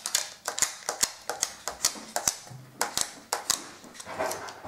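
Fingernails picking at and peeling a sticker off a Blu-ray steelbook case: an irregular run of sharp clicks and scratches, several a second.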